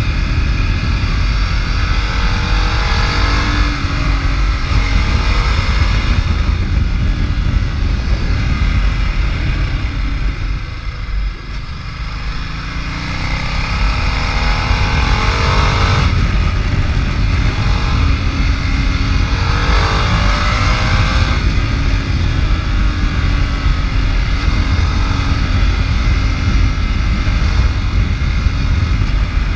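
Ducati Multistrada's V-twin engine under way, its pitch rising several times as it pulls through the gears, with a short easing-off about eleven seconds in. Heavy wind rumble on the microphone runs underneath.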